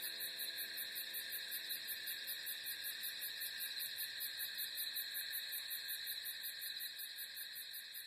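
Night insect chorus: crickets chirping in a fast, even pulse over a steady high trill, fading away gradually near the end.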